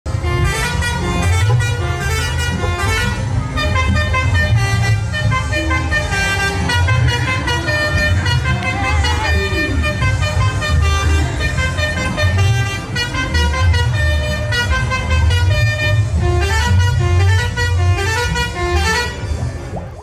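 A truck's multi-tone "basuri" horn playing a tune note after note, over a deep low rumble.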